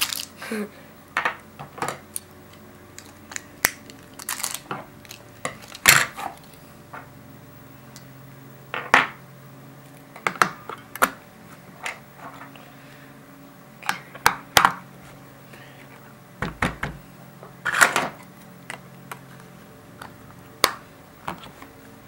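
Batteries being fitted into a plastic PS3 Blu-ray remote control: irregular sharp clicks, taps and small clatters of hard plastic and battery casings, some louder knocks among them.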